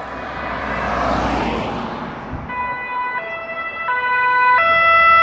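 Italian police car's two-tone siren. The pitch alternates high and low about every 0.7 s and gets louder as the car approaches. Before it starts, about two and a half seconds in, a rush of passing-vehicle noise swells and fades.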